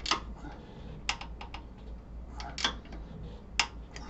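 Irregular light clicks and taps of hand tools and bolts being handled at a motorcycle's handlebar riser top clamp, about eight in all, several bunched together around a second in.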